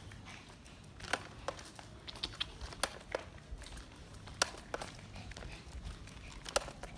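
Irregular sharp clicks and scuffs of steps on concrete pavement, about ten in all, the loudest about four and a half and six and a half seconds in.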